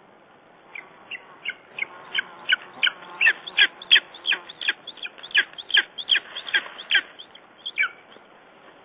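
Lesser spotted eagle calling: a fast series of about twenty short, sharp calls, roughly three a second, building to the loudest in the middle and trailing off about a second before the end.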